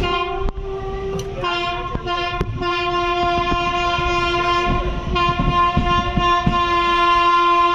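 Train horn held in one long steady blast, shifting slightly in pitch about a second and a half in. Under it, the wheels clack over rail joints as the train rolls along.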